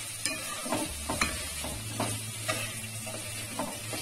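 A wooden spatula stirring and scraping boiled chickpeas through thick masala in a metal kadhai, about two strokes a second, with the masala sizzling lightly in the oil underneath.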